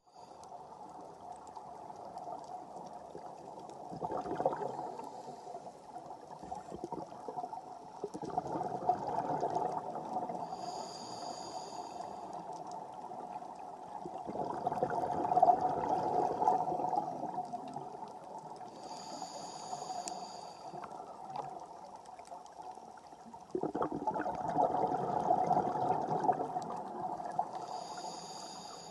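Scuba diver breathing through a regulator underwater: a short, high hiss on each inhale, then a longer gurgling rush of exhaled bubbles, about one breath every nine seconds.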